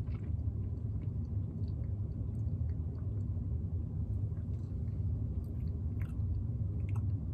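A person gulping soda from a plastic bottle: faint swallows and small mouth and bottle clicks scattered through, over a steady low hum.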